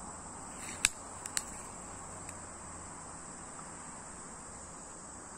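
Steady high-pitched chorus of insects, with a few sharp clicks about a second in, the first the loudest, and a faint one a little after two seconds.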